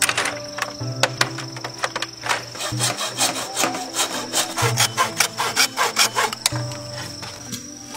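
Hacksaw cutting through a fresh green bamboo pole, an even back-and-forth rasp at about three strokes a second, after a few sharp hammer taps on bamboo slats near the start. Soft instrumental music runs underneath.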